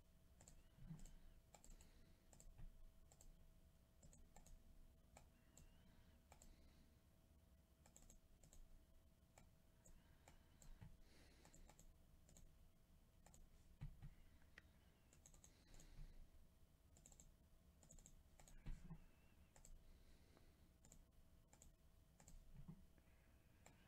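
Near silence with faint, scattered clicks of a computer mouse and keyboard, over a faint steady hum.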